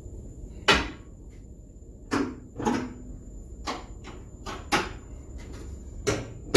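A run of irregular sharp knocks and clunks from hard parts being handled and set down, about nine in all, the loudest about a second in.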